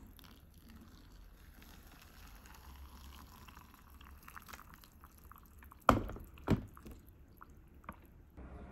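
Hot water poured from a stainless steel kettle into a cup of instant ramen, a faint steady stream that stops about five and a half seconds in. Two sharp knocks follow about half a second apart.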